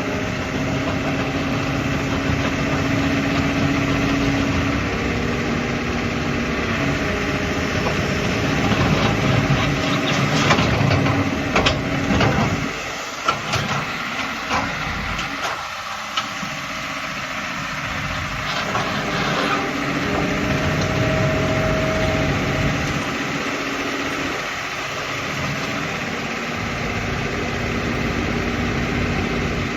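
Hitachi ZX200 hydraulic excavator's diesel engine running continuously, its sound rising and falling as the load changes, with a few sharp clanks about ten to twelve seconds in.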